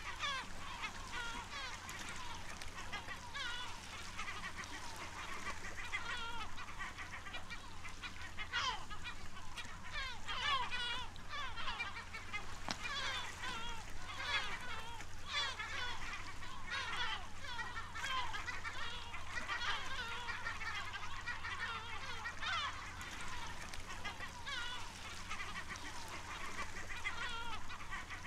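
A gull colony calling: many gulls giving short, overlapping cries, one after another without a break.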